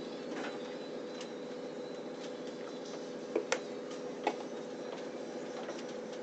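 Passenger train carriage's running noise from inside: a steady rumble and hum. About halfway through come two quick sharp clicks, then a third just after.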